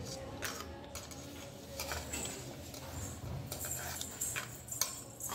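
Plastic spoon scooping grated coconut on a stainless steel plate, giving light scattered clicks and scrapes against the metal, more of them in the second half.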